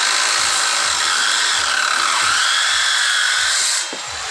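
Handheld circular saw cutting along the edge of a solid wood door, a steady high whine of the blade in the wood. It stops cutting near the end and the sound drops away.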